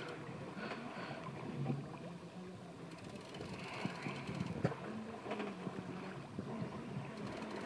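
Background noise aboard a fishing boat at sea: a steady rush of water and wind, with a low hum and a sharp knock about four and a half seconds in.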